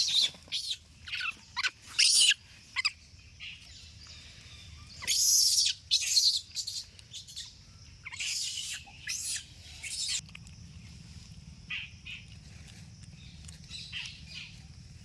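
A young monkey giving a rapid series of high-pitched squeaks and shrieks, many falling sharply in pitch. The calls come thick and loud for the first ten seconds, with a longer shriek about five seconds in, then turn fainter and sparser.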